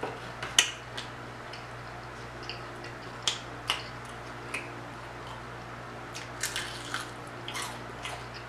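Eating sounds from a fried chicken wing: scattered sharp crackles and wet clicks as the crispy wing is pulled apart by hand and chewed, over a low steady hum.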